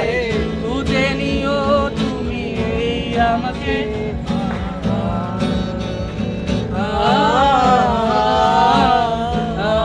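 Yamaha acoustic guitar strummed in a steady rhythm while a man sings, his voice growing louder and more sustained in the last few seconds.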